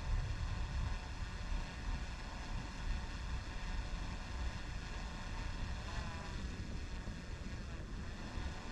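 Wind buffeting the camera's microphone, a low, gusting rumble that rises and falls in strength.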